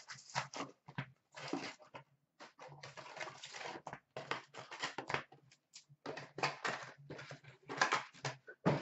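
Cardboard box of hockey card packs being opened and emptied: a quick run of short rustles, scrapes and taps as the packs are pulled out and set down in a stack.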